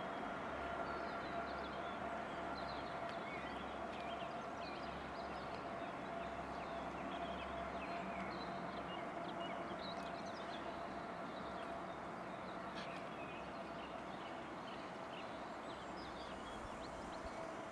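Steady outdoor background hiss with a faint constant hum, and many short, faint high chirps scattered through it.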